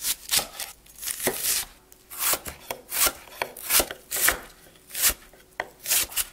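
Chef's knife chopping a yellow onion on a wooden cutting board: a string of sharp, irregular knife strokes, about two a second, as the onion is sliced and diced.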